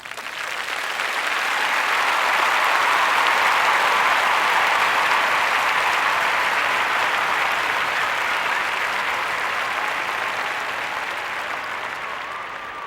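Large crowd applauding. The clapping swells up over the first couple of seconds, holds steady, then begins to die away near the end.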